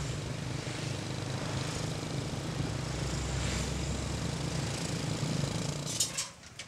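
Small motorcycle engine running at a steady road speed, with rushing air and road noise. It cuts off about six seconds in, followed by a few sharp knocks.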